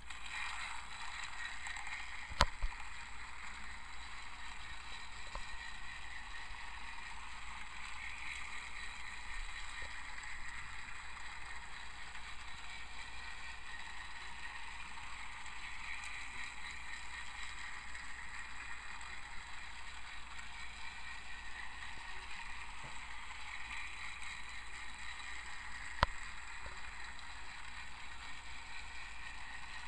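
Battery-powered TrackMaster Raul toy engine running around a plastic track, its motor and gears giving a steady whir. Two sharp clicks stand out, one about two seconds in and one near the end.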